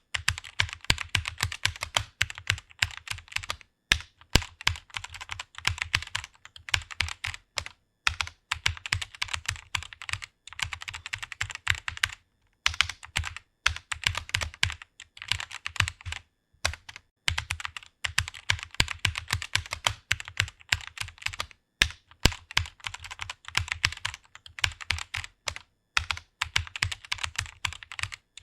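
Fast typing on a computer keyboard: a dense stream of key clicks in runs of a few seconds each, broken by brief pauses.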